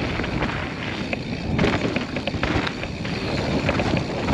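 Mountain bike rolling down a rough dirt trail: a steady rolling rush with many small rattles and knocks, and wind on the microphone.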